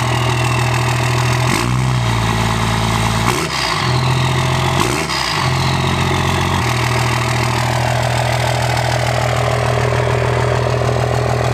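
Cummins turbo-diesel in a second-generation Dodge Ram running through an oversized stack-style exhaust tip: idling, then revved three times in quick succession, each blip rising and falling back, with the turbo whistle sliding down after the revs before it settles back to a steady idle.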